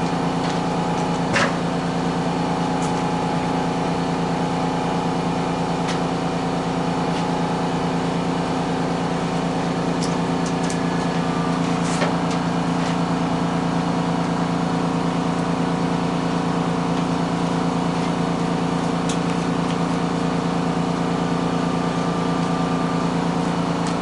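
Steady hum of a running electric motor in a shop, with a few light clicks and knocks of things being handled.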